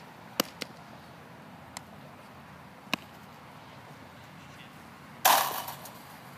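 A few sharp clicks, then a loud brief thump with a rustling tail about five seconds in, as a baseball is fielded off a short hop into a leather glove.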